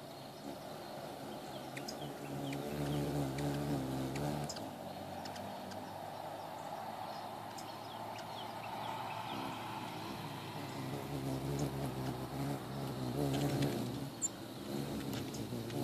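Wings of ruby-throated hummingbirds humming as they hover and jostle around a nectar feeder. The buzzing hum wavers and swells twice, about three seconds in and again near the end.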